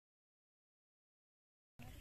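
Dead silence: the sound track drops out completely, and faint background noise comes back near the end.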